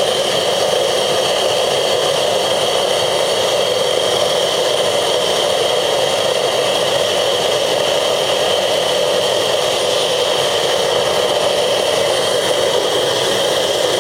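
Gas burner of a homemade metal-melting furnace firing: a loud, steady rushing roar that does not change.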